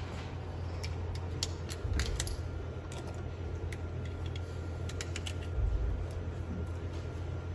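9mm cartridges clicking as they are pressed one by one into a pistol magazine, with small metallic rattles of loose rounds, over a steady low hum.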